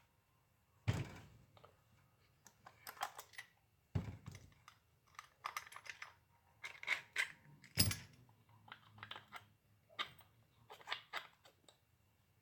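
Small screws and parts of a chainsaw sharpener being handled during disassembly: scattered light clicks and rattles, with three louder knocks spread through.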